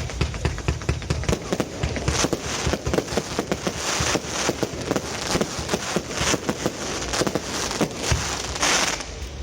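Aerial fireworks going off in a dense, rapid crackle of pops and bangs, with several brief louder bursts of hissing crackle.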